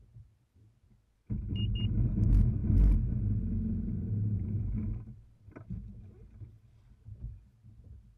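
Jet ski engine running steadily for a few seconds, starting and stopping abruptly, with two short high beeps just after it starts. Faint low thumps before and after.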